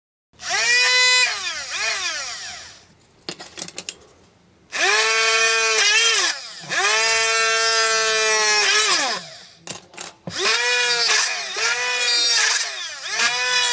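Homemade 12 V drill's DC motor switched on and off several times. Each run spins up to a steady high whine, then falls in pitch as the motor coasts down, with a few quick short bursts near the end.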